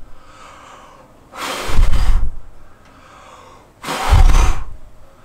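A person blowing hard at a camera-mounted vlogging microphone with its furry windscreen on, as a simulated wind test. There are two blows, about two and a half seconds apart, each a rush of air with a deep rumble of wind buffeting the microphone.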